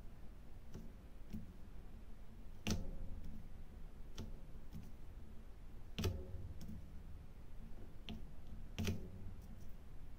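Diamond painting applicator pen picking up resin drills and pressing them onto the adhesive canvas: scattered sharp clicks and taps a second or two apart.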